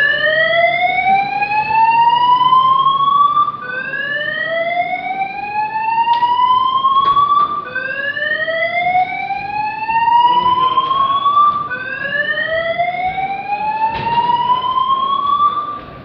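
Building fire alarm sounding its evacuation tone: a loud rising whoop about four seconds long, repeated back to back four times. A few faint knocks come through it.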